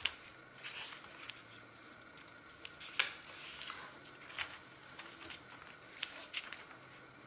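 Sheet of paper being folded and creased by hand: soft rustling broken by a few sharp crinkles, the loudest about three seconds in.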